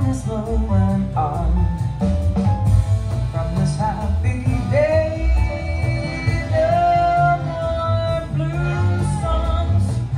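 A song with a singing voice over guitar and a strong bass line, played back through Burmester BC150 loudspeakers driven by a 077 preamp and 218 mono power amplifiers, heard in the listening room. The voice holds long notes through the middle.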